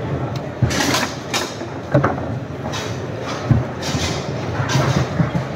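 Foosball table in play: irregular sharp knocks of the ball and the rod-mounted players striking it and the table, over a steady murmur of crowd chatter.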